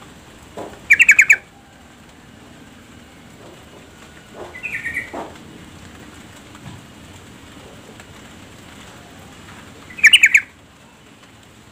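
Female yellow-vented bulbul calling. A loud, quick burst of about five chattering notes comes about a second in, a softer chatter around the middle, and another loud burst near the end.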